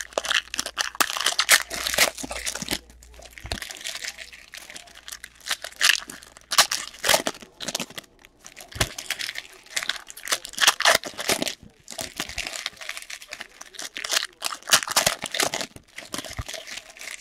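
Foil trading-card pack wrappers crinkling and tearing as packs are opened by hand, in irregular bursts.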